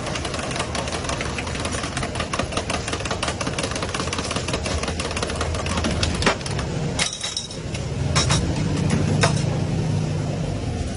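A metal spoon stirring and clinking rapidly against stainless steel jugs while condensed milk is mixed, over steady background noise. Near the end, brewed tea is poured through a cloth strainer into a jug.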